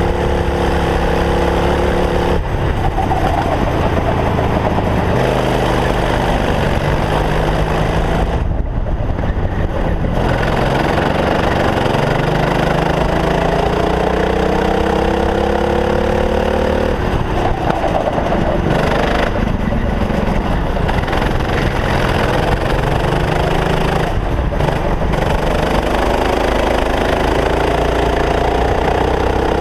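Racing kart engine heard onboard at full throttle, its pitch climbing steadily for several seconds at a time and dropping sharply when the throttle comes off, several times over, with a steady rush of wind noise.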